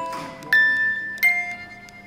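Background music of bright, bell-like mallet notes, three struck in the space of about a second and a quarter, each ringing on as it fades.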